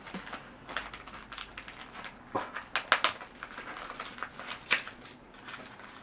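Wrapping paper crinkling and crackling as a small, heavily wrapped gift is picked open by hand. The crackles are irregular, with a few louder ones in the middle and near the end.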